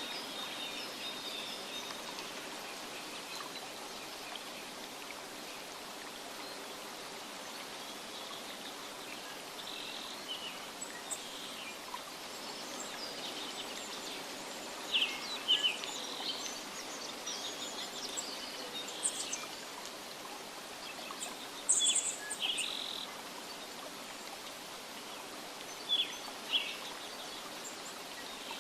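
Nature ambience: a steady soft hiss with scattered bird chirps over it. A few louder, sharper chirps come about halfway through and again near the end.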